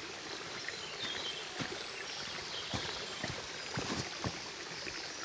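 Outdoor ambience: a steady rushing hiss with a few soft knocks between about one and a half and four and a half seconds in.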